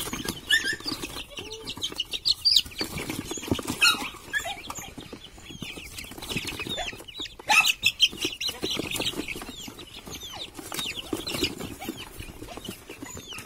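Chicks peeping, short high chirps again and again, with the rustle and knock of a cardboard box as they are lifted out by hand.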